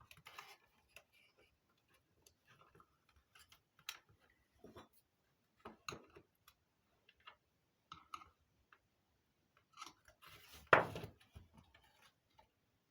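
Irregular small clicks and taps of tools and plastic parts being handled while opening a radio telephone's battery pack casing, with one louder clatter near the end.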